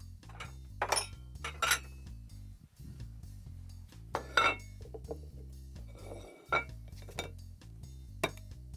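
Dish clinks and knocks: a plate set down on a wooden counter and a fine-mesh coffee strainer tapped against it to turn out the vinegar mother, about six separate knocks, over soft background music.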